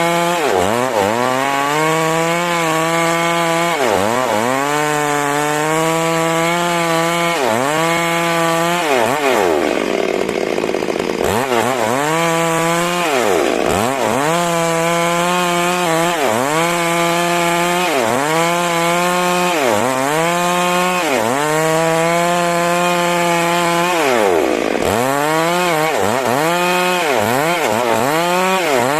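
Stihl MS 382 two-stroke chainsaw ripping a large trembesi log: the engine runs near full throttle, its pitch sagging as the chain bites into the wood and climbing back every second or two. Twice it drops much lower for a second or more before picking up again, about a third of the way in and again near the end.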